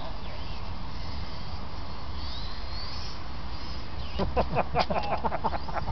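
Small electric RC model cars running on open tarmac: a faint high motor whine rises briefly in the middle over steady wind rumble. Near the end a quick run of short, sharp pitched sounds, several a second for under two seconds, is the loudest thing.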